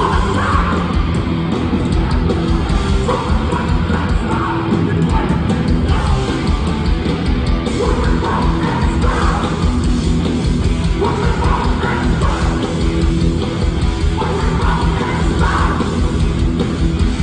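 Hardcore punk band playing live: loud distorted guitars and pounding drums with shouted vocals coming and going over them.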